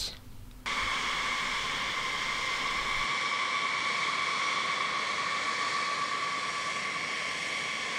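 Boeing B-52 Stratofortress's eight jet engines running as the bomber taxis: a steady high whine with two clear tones over a hiss. It starts abruptly just under a second in.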